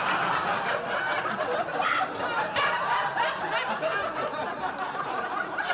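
Audience laughing, steady throughout.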